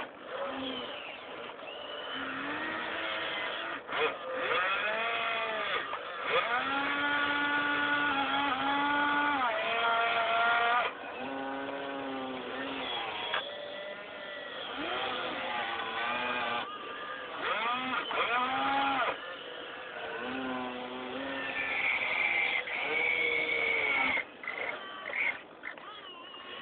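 Electric motors of a radio-controlled excavator whining. Their pitch rises, holds for a second or two and falls again in repeated arcs, with two tones sometimes overlapping as different movements are worked.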